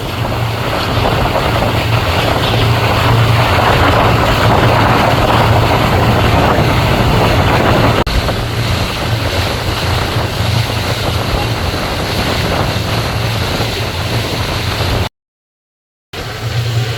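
Pontoon boat's outboard motor running steadily underway, a constant low hum under a rush of wind and water. The sound cuts out completely for about a second near the end.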